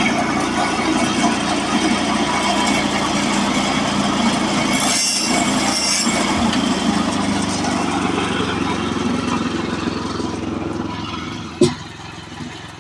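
Portable band sawmill's gas engine running steadily, with a brief hiss about five seconds in. The sound eases off about ten and a half seconds in, followed by a single sharp knock.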